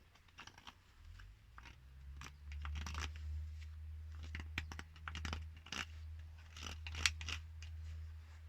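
Short clicks, scrapes and crunches of hand tools cutting and prying at a plastic water pipe and its fitting, over a steady low hum that starts about a second in.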